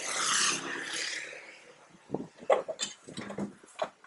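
Street-market background noise: a swelling hiss with a low hum that peaks in the first second and fades away, then scattered short clatters and brief snatches of sound.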